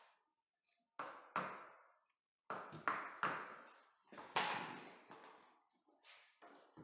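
Rubber mallet knocking on luxury vinyl floor planks to seat and lock them: about ten sharp knocks at irregular intervals, each dying away quickly in a small room.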